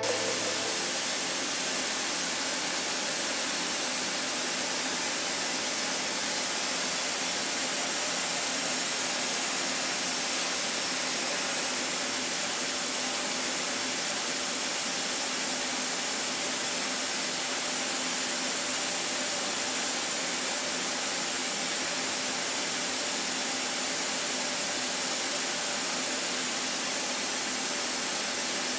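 CNC milling machine cutting tough-pitch copper with a 3 mm carbide end mill at 5,300 rpm in a long-flute roughing pass: a steady hiss with a faint low hum under it, unchanging throughout.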